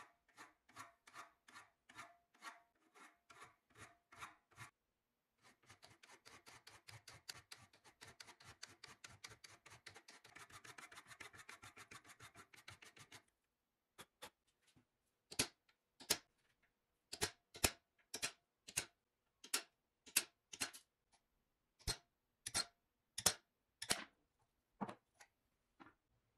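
A hand file drawn across an antique H.D. Smith winged-handle screwdriver clamped in a vise, about three strokes a second. After a short pause, quicker rubbing strokes on the wooden handle scales run for several seconds. In the second half come sharp metal taps, about one a second, as the pins holding the wooden scales are knocked out.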